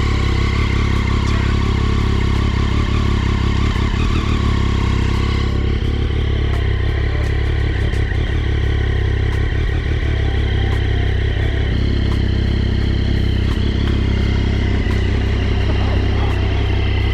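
2007 Triumph Daytona 675's inline three-cylinder engine running steadily at a constant, even speed, freshly started after a chain, sprocket and swingarm rebuild.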